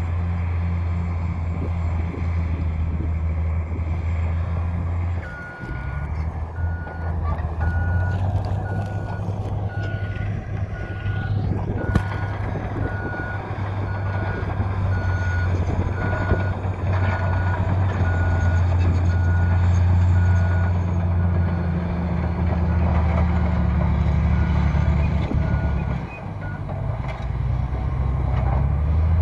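Caterpillar D10T bulldozer's C27 V12 diesel engine running steadily under load. From about five seconds in until near the end, its reverse alarm beeps in an even series, the sign that the dozer is backing up. The engine note dips briefly as the beeping starts and again as it stops.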